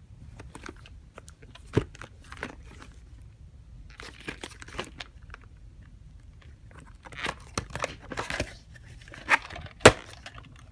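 A plastic clamshell VHS case being handled and turned over: scattered rustling and small plastic clicks, with one sharp click near the end.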